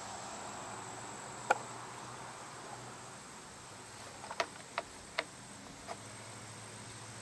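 Small parts of a backpack blower's fuel system being handled: one sharp click about a second and a half in, then four lighter clicks in quick succession past the middle, over a faint steady hum and a thin high whine.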